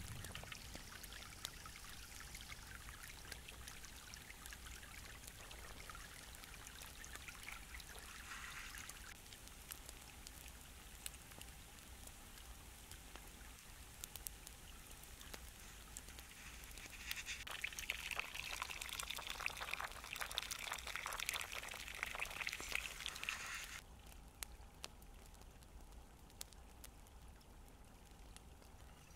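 Shallow stream running and trickling over stones. Past the middle a louder, crackly stretch of noise rises and then cuts off abruptly.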